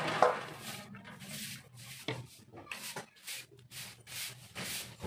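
Carburetor parts being scrubbed by hand during cleaning: a run of short, scratchy rubbing strokes, roughly two a second. A brief sharp knock sounds right at the start and is the loudest moment.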